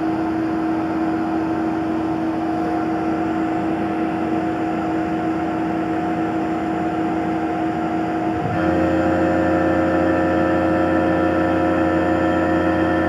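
Tormach PCNC 1100 CNC mill running a cut in MIC6 cast aluminium plate: a steady spindle whine over cutting noise. About eight and a half seconds in it steps up louder, with more whining tones.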